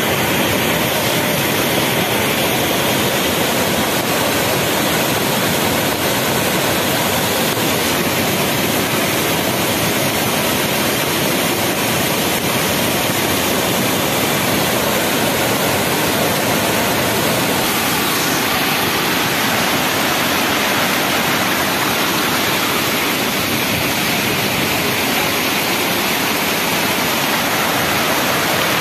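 Rain-swollen brown floodwater pouring over a low concrete weir and churning through rapids: a loud, steady rush of water.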